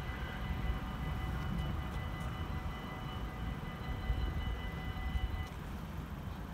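Level-crossing warning bells ringing steadily as the barriers rise, then cutting off about five and a half seconds in, over a low rumble.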